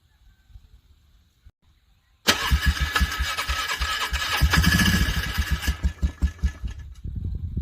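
Vehicle engine cranking over on its starter in frigid cold, struggling to start. It begins suddenly about two seconds in, turns with a rapid, regular pulse for about five seconds and dies away near the end without catching.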